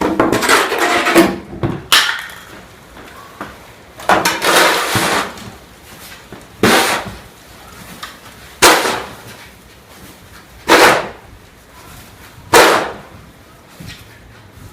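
Snow shovel scraping and pushing into deep snow, a series of noisy strokes, the later ones short and sharp about every two seconds.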